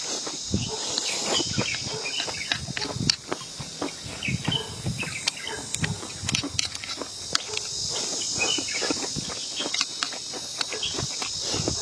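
Insects chirring steadily in the background, with many close, irregular clicks and taps from people eating: utensils on bowls and chewing.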